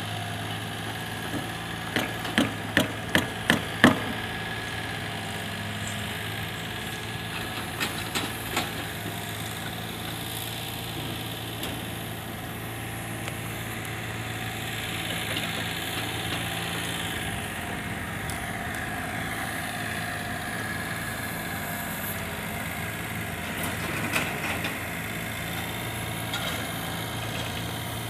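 A vehicle engine running steadily with an even low hum, with a quick run of about six sharp knocks early on and three more a few seconds later.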